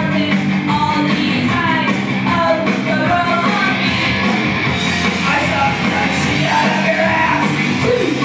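A woman singing into a handheld microphone over loud amplified music with a steady beat of cymbal-like strikes.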